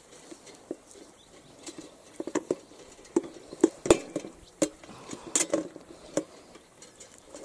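Irregular light clinks and knocks, scattered at first and coming thicker in the middle, from glass jars and other carried gear rattling as they are walked along.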